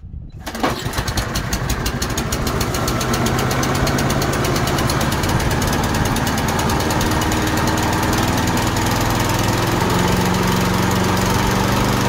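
Toro push mower's Kohler XT675 149cc single-cylinder engine starting about half a second in and then running steadily at speed. It now runs with a replaced ignition coil, the coil having been the cause of its no-start and dying-after-start fault.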